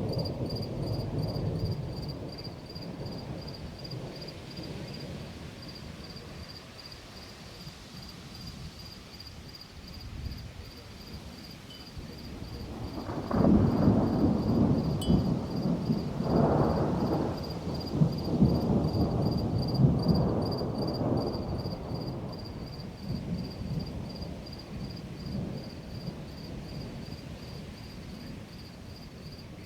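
Thunder rumbling. A roll dies away over the first few seconds, then a louder rolling peal begins about 13 seconds in and rumbles on for several seconds before fading. Insects chirp in a steady pulsing trill throughout.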